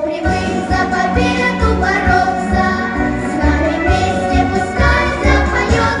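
A children's vocal group singing in unison into microphones over a pop backing track with a steady bass beat.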